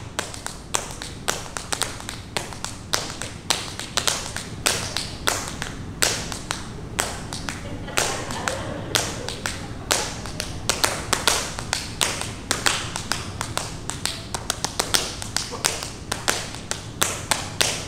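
Tap shoes striking a wooden dance floor in a fast, uneven stream of sharp clicks and heel drops: an unaccompanied tap solo with no music.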